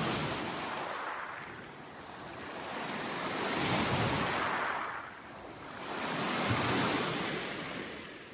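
Lake Superior waves washing onto the shore: three swells of surf hiss, each building and fading over about three seconds.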